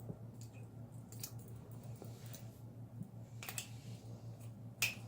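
Scattered light metallic clicks and taps of a wrench working a threaded hose fitting tight, the sharpest click near the end, over a steady low hum.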